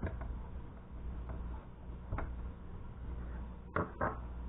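A few scattered sharp clicks and taps of monitor parts being handled as the circuit board and heat shield are seated back into the monitor frame. The loudest are two clicks in quick succession near the end, over a low steady hum.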